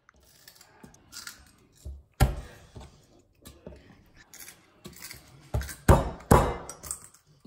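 Ginger being crushed under the flat of a chef's knife on a wooden cutting board: sharp knocks of blade and hand on the board, one about two seconds in and two close together near the end, with softer handling clatter between.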